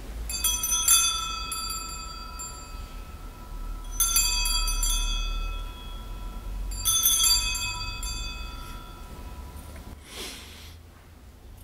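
Altar bells rung three times during the elevation of the chalice after the consecration. Each ringing is a bright jingle of several high tones that rings on and fades over a few seconds. A short soft rustle follows near the end.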